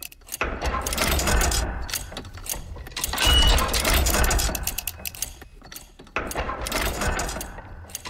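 Designed steampunk factory-machine sound effect, processed through an OTT multiband compressor: dense mechanical clicking and clanking over a low rumble, swelling and easing in a repeating cycle, with a short high ping about three seconds in.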